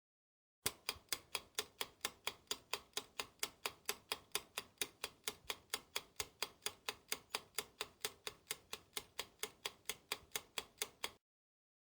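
Clock-ticking sound effect, an even run of sharp ticks at about four a second, like a quiz answer countdown timer; it starts about a second in and cuts off abruptly near the end.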